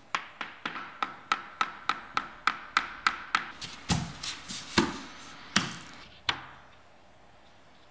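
A hammer tapping a wooden tapping block against the edge of a laminate plank, about three to four light taps a second, knocking the snap-lock joint closed. Then come a few louder, uneven knocks as the next laminate plank is angled into the joint and laid down.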